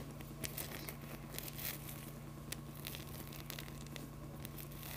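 Fingers scratching and rubbing the fluffy fur of a plush toy owl close to the microphone, an irregular crackly scratching over a low steady hum.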